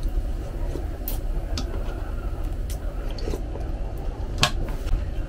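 Eating sounds from a person working through boiled beef shank: a few scattered sharp wet clicks and smacks, the loudest about four and a half seconds in, over a steady low hum.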